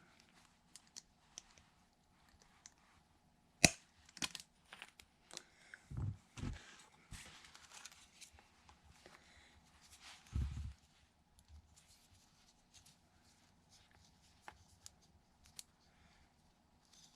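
Quiet hand-work on cull tags, with string being threaded and knotted through plastic clips and tags: rustling and small clicks, one sharp click a few seconds in, and a few dull knocks on the work surface around the middle.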